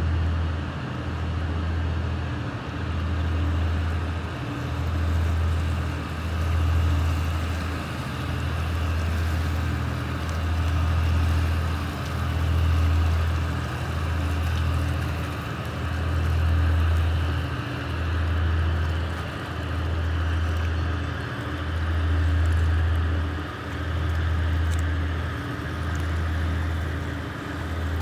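Towboat's diesel engines running, a loud low hum that swells and fades about every two seconds.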